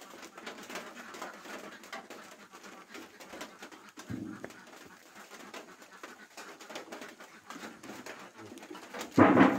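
Doves cooing in the background, with a thump about four seconds in and a louder thump near the end.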